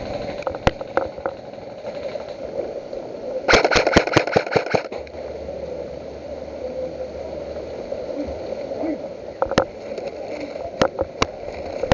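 Airsoft guns firing: a few single shots, then a quick string of about six shots a few seconds in, and more single shots near the end, over a steady low hum.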